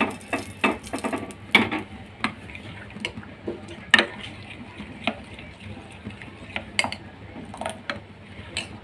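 Semolina batter being stirred in a glass bowl with a steel ladle, the ladle clinking against the bowl in irregular knocks about once a second.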